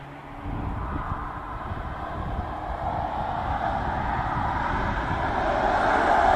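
Tyre noise of a Kia EV9 electric SUV on track, with no engine sound. It grows steadily louder as the car approaches.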